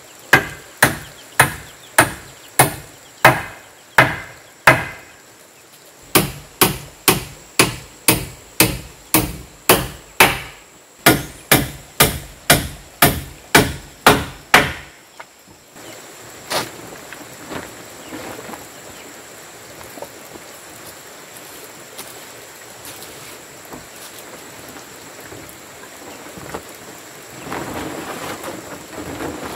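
A hammer striking the wooden rafters of a plank chicken coop, in steady sharp blows about two a second, with a short break around five seconds in; the hammering stops about halfway through. Afterwards there are quieter, scattered knocks of wood being handled, and near the end a plastic tarp rustles as it is spread over the roof frame.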